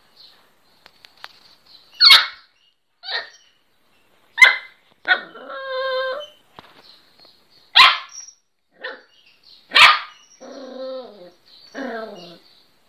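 Young miniature pinscher barking: four sharp single barks a couple of seconds apart, with longer, softer pitched cries between them, some falling in pitch.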